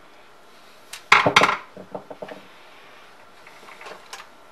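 A short, loud clatter of hard parts knocking together about a second in, followed by a few lighter clicks and taps: hands handling parts inside an electric pressure cooker's opened housing.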